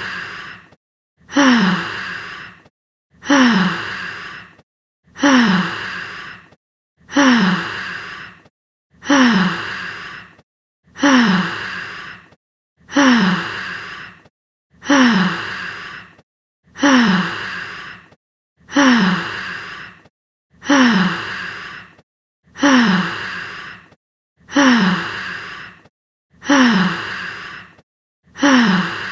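A human sigh sound effect, the same clip looped about every two seconds, each one starting sharply with a voiced pitch that falls and trailing off into breath.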